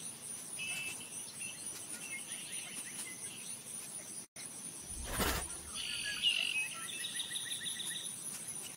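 Nature ambience of birds chirping and trilling over a steady high insect drone, with a single short thud-like sound about five seconds in.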